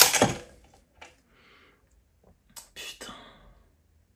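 Cylinder head of a KTM 1190 RC8 R V-twin coming free and being lifted off the engine: a sudden loud clunk with a short ring at the start, then softer handling noises about two and a half to three seconds in.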